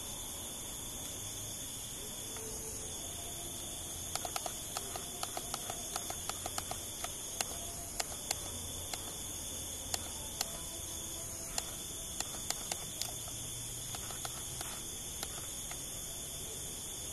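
Night insect chorus, a steady high-pitched trilling, as picked up by the Nikon Coolpix P510 compact camera's built-in microphone. From about four seconds in to about fifteen seconds, a run of short, sharp clicks comes at irregular intervals over it.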